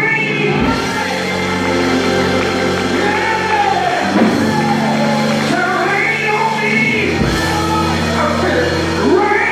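Church music: a voice singing over held instrumental chords that change every few seconds.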